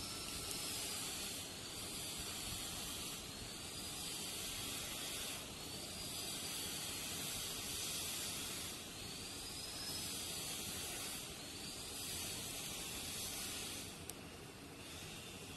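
Wool yarn being drawn through jute cloth with a needle in cross-stitch: a hissing rasp repeated every second or two, one pull after another, dropping away near the end.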